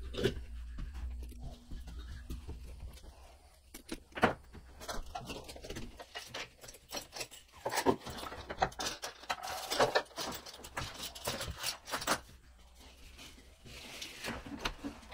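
Curtains being taken down: fabric rustling and bunching, with scattered clicks and knocks from the curtain rod and hardware.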